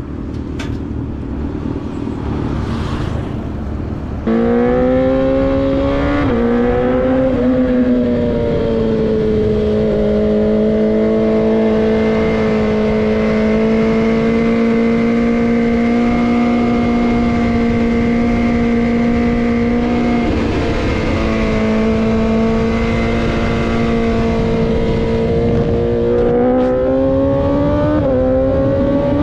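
BMW S1000RR inline-four sport bike riding at a steady cruise, heard from on board with wind noise. The engine note comes in about four seconds in, steps in pitch a couple of times soon after, dips briefly about twenty seconds in, and rises near the end.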